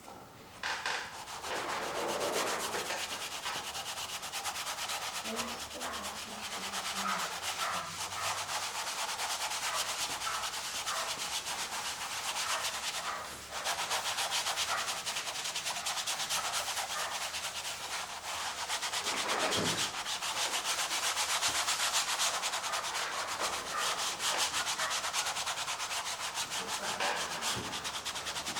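Paintbrush scrubbing acrylic paint across a canvas in continuous scratchy strokes, with brief breaks about 13 and 19 seconds in.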